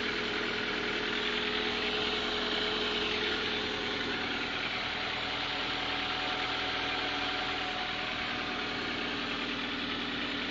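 Lada VAZ-21126 1.6-litre 16-valve four-cylinder engine idling steadily while cold, with the piston knock it shows when cold.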